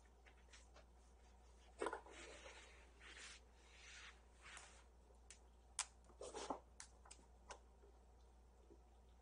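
Faint scratching, rustling and light taps from kittens at play, with a soft thump about two seconds in and a few sharp ticks and taps later on.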